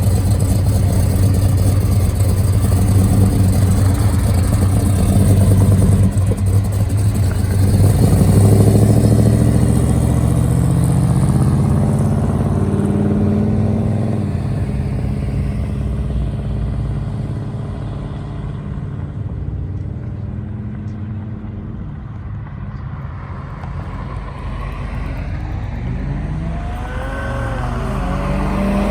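Car engine running loud, then revving up with rising pitch about a third of the way in and fading away as the car drives off; another vehicle's engine comes closer near the end.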